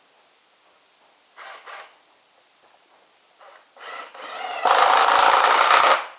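Impact driver driving a drywall screw into wood: two brief sounds about a second and a half in, then the driver runs up and hammers loudly with rapid clicks for about a second and a half before stopping.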